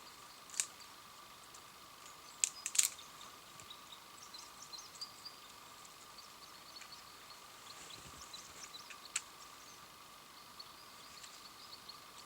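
A few sharp snaps and clicks, three close together about two and a half seconds in and single ones near the start and about nine seconds in, with faint scattered ticking between them over a faint steady hum.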